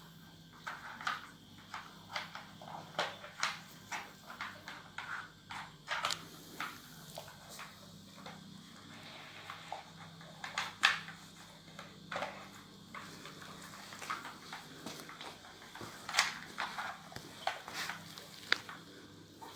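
Irregular sharp clicks and knocks of hard plastic as a dog noses and paws at an interactive puzzle feeder toy, moving its sliding lids and compartments.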